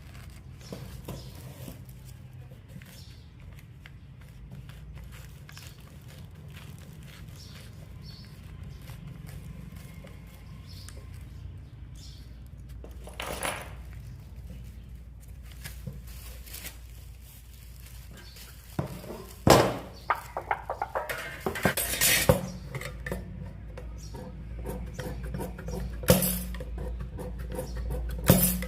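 Metal parts and tools clinking and knocking against each other: light scattered clicks at first, then a run of sharper, louder knocks about two-thirds of the way in, over a low steady hum.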